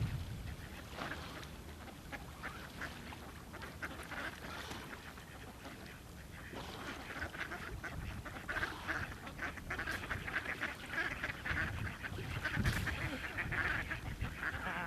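A flock of ducks quacking, many overlapping calls that grow busier and louder in the second half.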